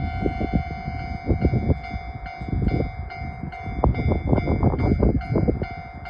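Level crossing warning bell ringing: a repeating electronic ding, about two and a half strikes a second over a steady tone, starting abruptly. Uneven low rumbling runs underneath.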